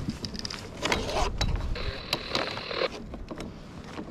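Scattered clicks and knocks of gear being handled on a plastic kayak, with a brief whir about two seconds in.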